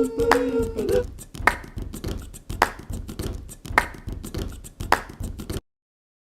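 Background music: a held vocal note that ends about a second in, then a percussive beat with a sharp hit about once a second, cutting off suddenly near the end.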